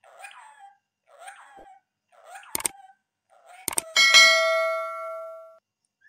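A rose-ringed parakeet gives four short chattering calls. Two sharp clicks follow, then a loud bell-like metallic ding that rings out for about a second and a half.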